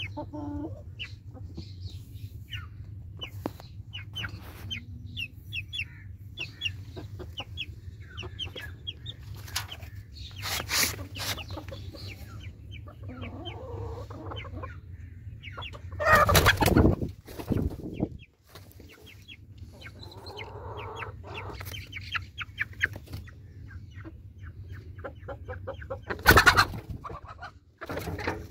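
A flock of chickens clucking, with many short calls overlapping. A few loud, sudden noises stand out: about ten seconds in, about halfway through, and again near the end.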